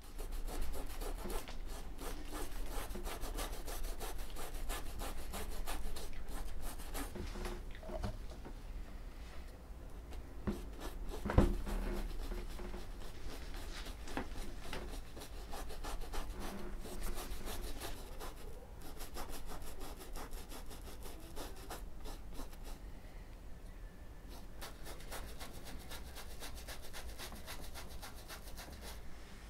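Continuous scratchy rubbing strokes on a rough surface, with one sharp knock about eleven seconds in.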